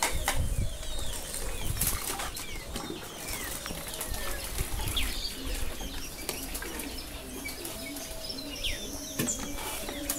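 Plastic bowls and poultry drinkers knocking and clattering against each other and water sloshing as they are washed in a tub of soapy water, with the knocks mostly in the first couple of seconds and again near the end. Short bird chirps sound now and then in the background.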